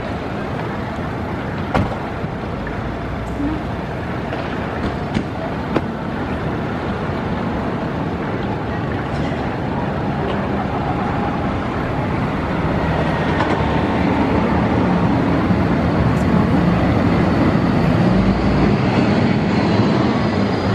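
City street noise: traffic running along a wide avenue, a steady wash that grows louder in the second half. A few sharp clicks come through in the first few seconds.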